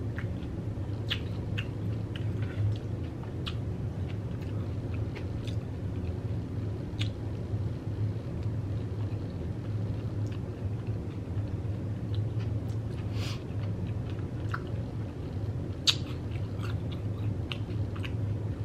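Close-up chewing of a mouthful of Xxtra Flamin' Hot Cheeto taco bowl, with scattered short crisp crunches and mouth clicks over a steady low hum. One sharp click about three quarters of the way through is the loudest sound.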